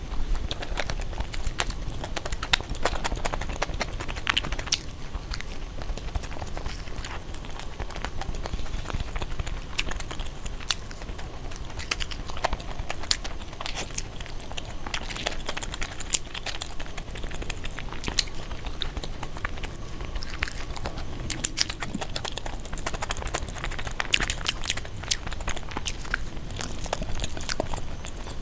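Close-miked eating: a person chewing and biting food, with many irregular crisp clicks and crunches.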